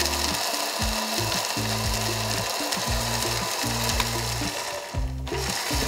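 Electric spice grinder running, its blade milling dry roasted whole spices into a fine powder. The grinding noise briefly drops out about five seconds in, then resumes.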